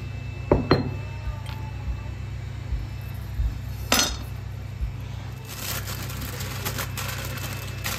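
Kitchen dishes clinking and knocking on the counter as a glass mixing bowl is handled, with a sharper knock about four seconds in. From about halfway through, a plastic bag of salad leaves crinkles. A steady low hum runs underneath.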